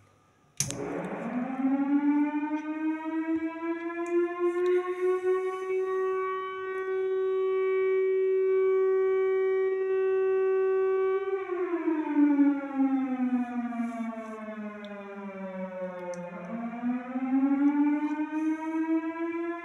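Siren sounded through a Toshiba public address amplifier: a loud wail that winds up over a few seconds and holds a steady pitch. About two-thirds of the way through it winds down, then rises again near the end. It is the Ramadan sehri-time siren.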